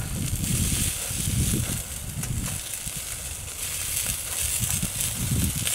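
Wind buffeting the microphone in low, uneven gusts, over a steady high hiss.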